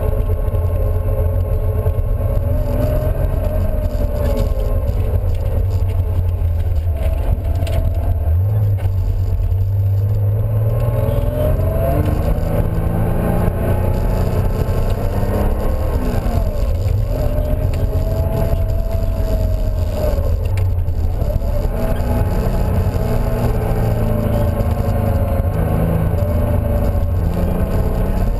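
Car engine and road noise heard from inside the cabin while driving, with a steady low rumble. The engine note climbs and then drops back several times, as with gear changes.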